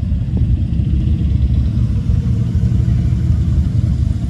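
Steady low engine and exhaust rumble of classic 1960s Ford F-100 pickup trucks driving past.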